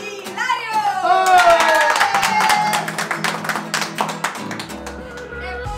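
Nylon-string classical guitar strummed in a fast flamenco-like rhythm, with hands clapping along and voices calling out over it. Near the end a steady low bass line comes in.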